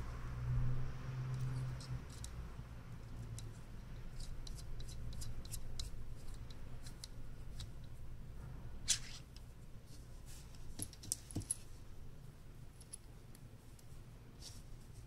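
Small metal parts of a hand-held needle punch clicking and tapping as the caps are unscrewed and set down on a tabletop. The sharpest click comes about nine seconds in, with a few more around eleven seconds.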